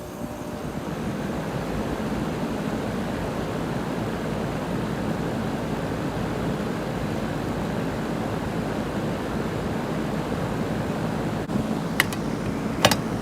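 Rheem 2.5-ton central air conditioner's outdoor condensing unit starting up. The sound swells over the first second or two into the steady whoosh and hum of the running condenser fan and compressor. Two short sharp clicks come near the end.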